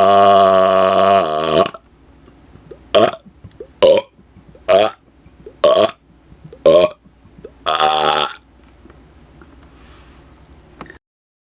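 A man burping on command. One long burp ends about a second and a half in, followed by six short burps about a second apart, the last one a little longer.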